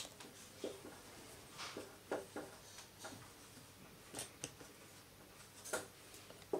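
Marker pen writing on a whiteboard: faint, irregular short squeaks and scratches of the pen strokes.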